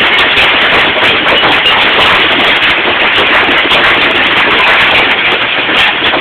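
Hail coming down hard: a loud, dense, unbroken rattle of countless small hailstone impacts.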